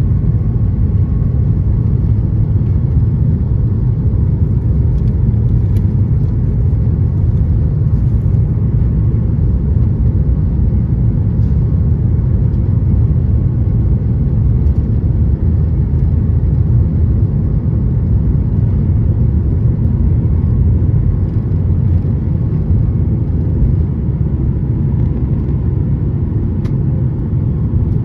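Boeing 737 MAX 8's CFM LEAP-1B turbofan engines at takeoff thrust during the takeoff roll, heard from inside the cabin as a steady, loud, low rumble.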